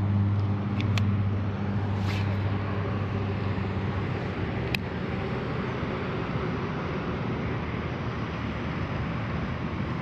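Road traffic noise: a steady hiss of passing traffic, with a low vehicle engine hum that fades away over the first few seconds. A few faint clicks sound over it.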